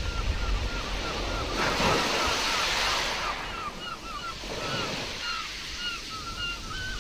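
Nature-sounds recording of ocean surf and wind, with a wave washing in about a second and a half in and a smaller one near five seconds. A steady run of short chirping calls, about three a second, sounds over it.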